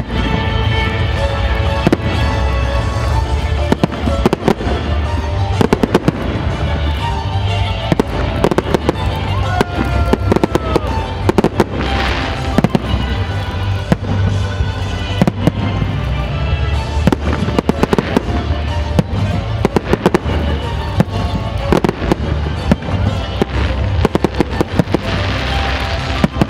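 Aerial fireworks shells bursting in a rapid, continuous string of bangs and crackles, with music playing underneath. Bursts of crackling hiss come about twelve seconds in and again near the end.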